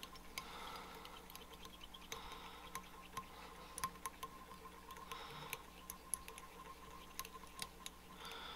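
Faint, irregular clicks and ticks of fly-tying thread being wrapped around a hook shank with a metal-tube bobbin, binding down a tail connector.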